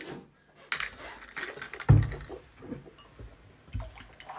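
Knocks and small handling noises at a table, with a dull thump about two seconds in and another, softer one near the end.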